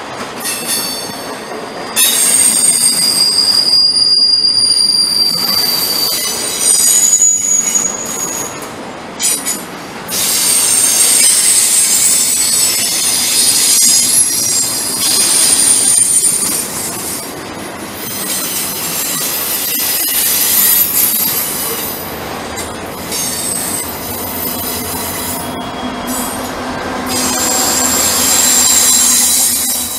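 Union Pacific intermodal freight train rolling past with its wheels squealing: several high-pitched squeal tones that shift, fade and return over the steady rumble of the cars.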